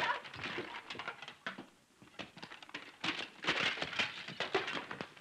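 A scuffle: a rapid, irregular jumble of knocks, thumps and rustling as a man is tumbled headfirst over a sofa, with a brief lull about two seconds in before it picks up again.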